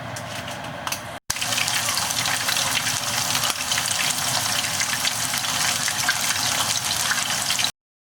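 Hot oil sizzling and crackling steadily as small mackerel deep-fry, with a brief dropout about a second in and an abrupt stop near the end.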